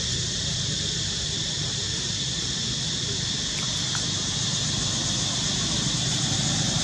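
Steady outdoor ambience: a constant high insect drone over a low rumble, with no distinct events.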